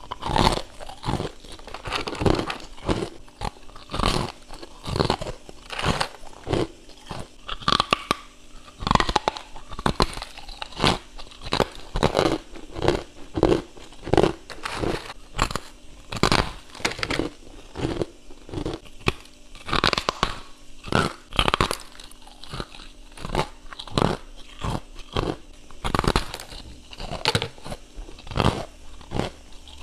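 Chunks of hard freezer frost being bitten and chewed, a rapid run of crisp, chalk-like crunches a few times a second.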